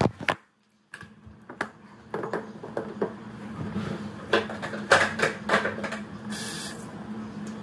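Scattered knocks, taps and clatter of things being handled on a bathroom counter, over a steady low hum. A brief hiss comes about six seconds in.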